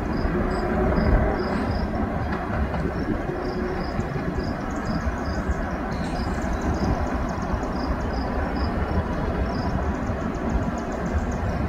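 Diesel locomotives of an approaching freight train, led by a Norfolk Southern GE ES44DC with its V12 diesel, running with a steady low rumble.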